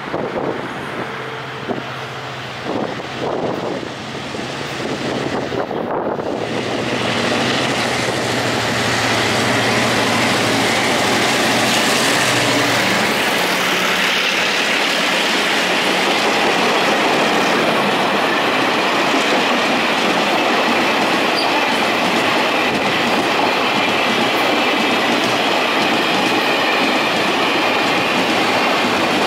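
Two EMD diesel-electric locomotives, a G12 leading a G22-CU, approach and pass with a low steady engine drone, growing louder as they near. After they pass, about halfway through, the freight wagons roll by with steady wheel-on-rail noise and clickety-clack over the rail joints, with a faint high wheel squeal.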